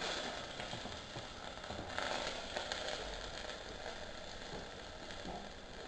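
Hot oil crackling and sizzling in a preheated stainless steel pot, starting sharply and going on as a steady hiss, a little louder about two seconds in.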